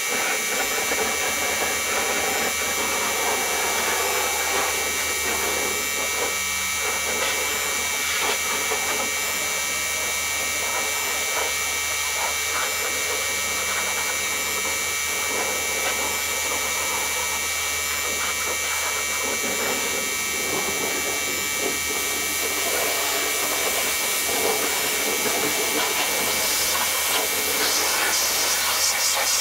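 A small electric power tool running steadily, with irregular scratchy noise over its hum.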